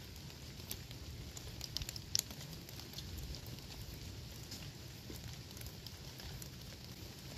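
Scattered faint crackles and clicks over a low steady rumble, with one sharper click about two seconds in.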